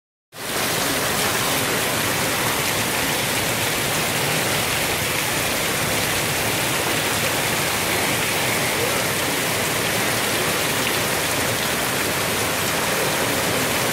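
Heavy rain pouring down, a steady, even rush of water.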